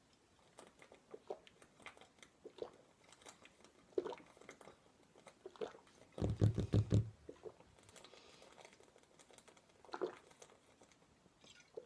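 A man chugging malt liquor from a 40-ounce glass bottle: soft repeated swallows and gulps, with a louder run of rapid glugs lasting about a second around six seconds in.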